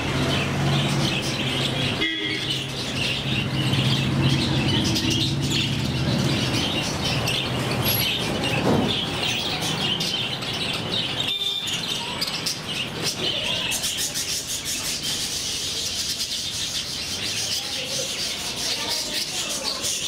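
A flock of budgerigars chattering and chirping continuously. A low steady hum sits underneath for the first several seconds.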